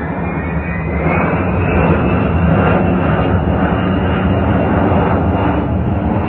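Four-engine jet passing low overhead: a loud, steady jet rumble with a high whine that rises in pitch about a second in as the noise swells. Its engines have just ingested a flock of birds.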